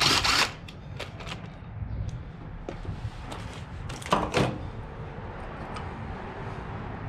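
Cordless impact wrench hammering on an engine mount bolt, ending about half a second in, with a second short burst about four seconds in. Light clicks and tool handling fall between the two bursts.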